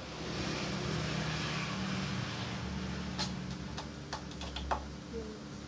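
Clicks and taps of a hand working the knobs and faders of an Ashley King 16 audio mixer: a handful of sharp clicks between about three and five seconds in, over a low steady hum.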